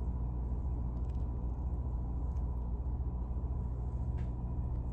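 Steady low mechanical hum with a faint thin high tone over it and a few light clicks.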